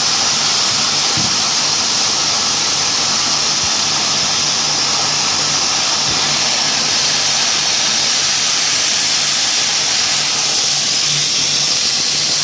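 Textile ring frame running, its spindles spinning yarn onto bobbins with a steady high whir and hiss over a low hum that swells and fades every second or so.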